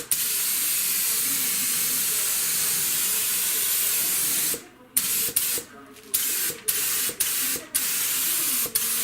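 Paint spray gun spraying white primer onto a car body panel, the first coat: one long steady hiss of about four and a half seconds, then a series of short hissing bursts, each about half a second, as the trigger is pulled and released.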